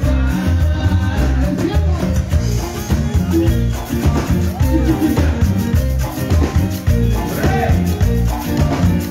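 Live cumbia band music through a large concert PA: a steady bass-and-drum beat with a melody over it.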